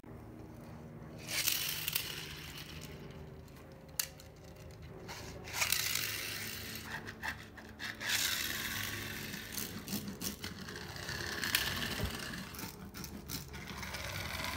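Small die-cast toy vehicles rolling and scraping across a laminate floor as they are pushed along, in about six rasping surges a few seconds apart.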